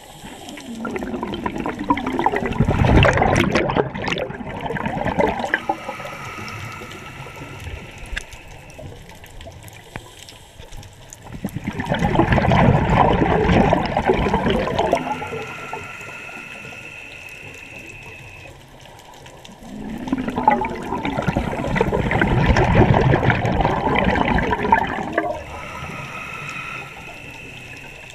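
Scuba diver breathing through a regulator underwater: three long bursts of exhaled bubbles, each followed by a quieter, hissing inhale through the demand valve with a steady whistling tone.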